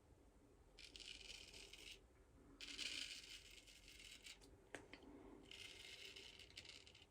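Razor blade scraping through lathered stubble in three strokes of about a second each, with a single light click between the second and third.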